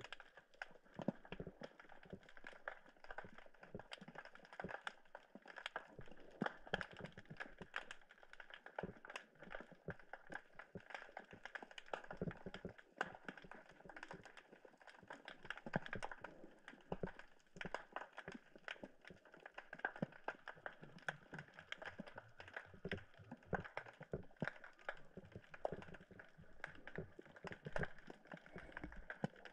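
Underwater crackling: a dense, irregular run of sharp clicks and pops.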